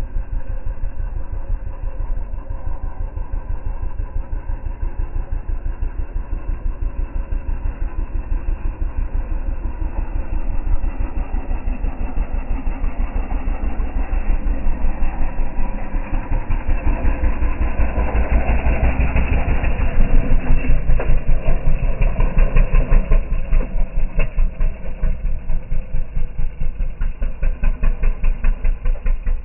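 Small kids' dirt bike engine running, with a fast, even engine beat throughout that grows louder from about halfway and peaks around two-thirds of the way through as the bike comes close.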